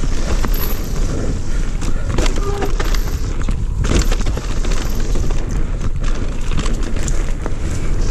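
Electric mountain bike riding fast down a dirt singletrack: wind buffeting the microphone in a loud, steady rumble, with tyre noise and a stream of knocks and rattles as the bike bounces over the rough trail.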